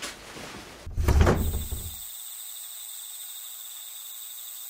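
A sudden deep hit, a horror sound-effect stinger, strikes about a second in and fades away over about a second. It leaves a steady night chorus of crickets chirring.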